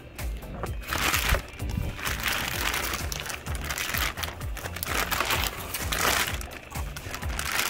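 Background music, with packaging crinkling in several rustling bursts as it is handled and pulled off a boxed part.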